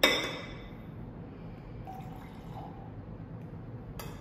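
A glass carafe is set down on the counter with one sharp clink that rings briefly and fades. A second, lighter click comes near the end.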